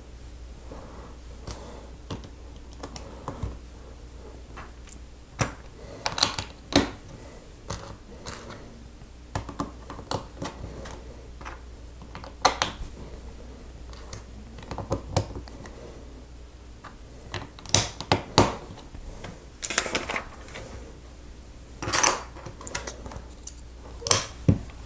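Plastic LEGO bricks being handled and snapped onto a baseplate: irregular sharp clicks and light clatter.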